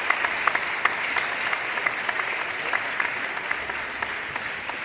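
Audience applauding, individual claps standing out in the steady clapping, which slowly dies down near the end.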